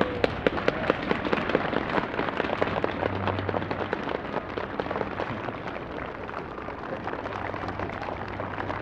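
Crowd applauding: dense clapping, strongest in the first few seconds, then thinning out, over a low steady hum in the recording.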